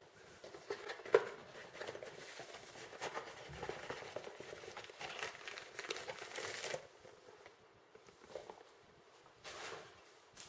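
Cardboard box and plastic wrapping rustling and crinkling as a microphone is slid out of its packaging, with a sharp tap about a second in. It goes quieter after about seven seconds, with one more short rustle near the end.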